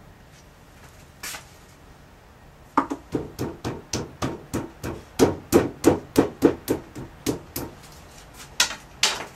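A thick chunk of clay being pounded flat by hand on a slab roller: a quick run of dull blows, about four a second, for some five seconds, then a few slower blows near the end.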